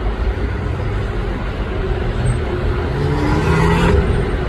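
Steady low rumble of road traffic, swelling louder about three seconds in and dropping back sharply near the end.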